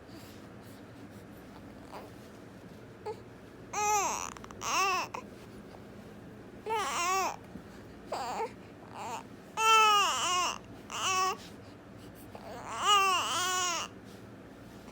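Newborn baby making short fussing vocalisations, whiny coos and cries, each call rising and falling in pitch. They come in about nine short bursts, starting about four seconds in.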